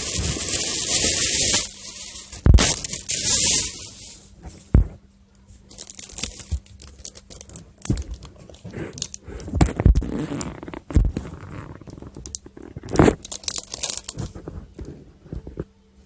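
Plastic packaging rustling and crinkling as purchased items are handled. The first four seconds hold a loud hissy rustle, followed by scattered short crinkles, clicks and light knocks over a faint steady hum.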